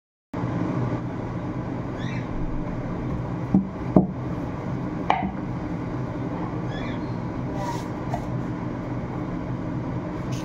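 Wooden rolling pin rolling out roti dough on a board, knocking a few times near the middle. A steady low hum runs throughout, with a few faint high chirps.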